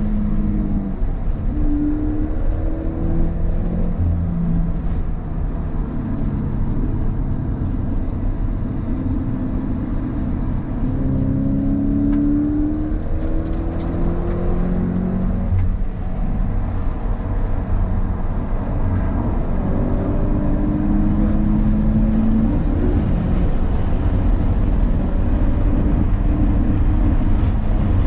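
Subaru BRZ's 2.0-litre flat-four engine under hard track driving, heard from inside the car. The revs climb and fall again and again as it accelerates, shifts and slows for corners, over steady road and wind noise.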